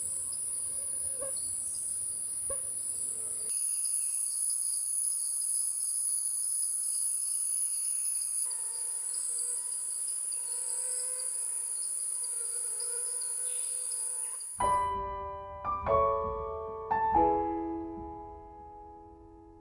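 A steady, high-pitched insect chorus that shifts abruptly twice. About fifteen seconds in it stops and slow piano music begins, a few spaced notes each fading away.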